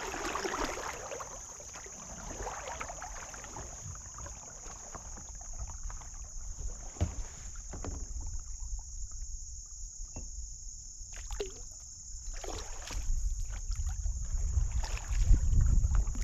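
Kayak paddling: paddle blades dipping and splashing, with scattered light knocks of paddle against hull, over a steady high hiss. Low wind rumble on the microphone builds near the end.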